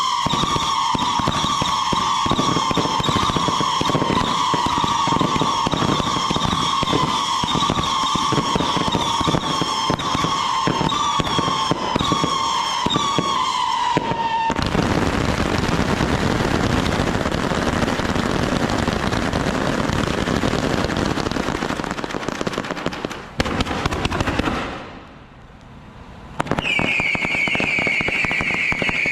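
Fireworks going off in a rapid stream: a steady high whistle over quick crackling bangs. Partway through the whistle stops and a dense crackling barrage takes over. After a short lull, a new, higher whistle starts with more crackling near the end.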